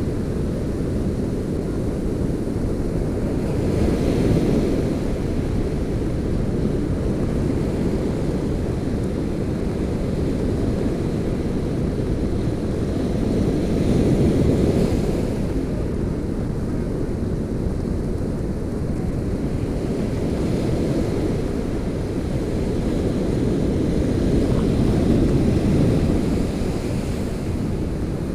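Surf breaking and washing up a sandy beach, overlaid by wind rumbling on the microphone. The wash swells louder about three times, roughly every ten seconds, as waves break and run up the sand.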